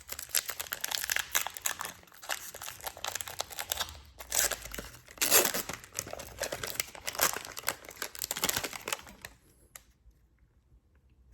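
Foil wrapper of a Pokémon booster pack being torn open and crinkled in the hands: a dense, irregular crackle that stops near the end.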